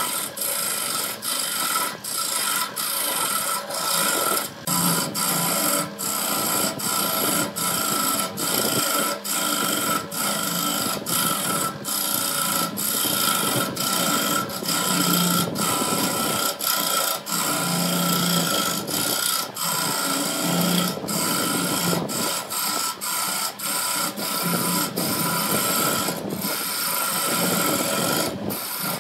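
Wood lathe running while a hand-held turning tool cuts into a spinning wooden blank: a continuous scraping hiss of wood being shaved, over a steady whine, broken by frequent brief dips.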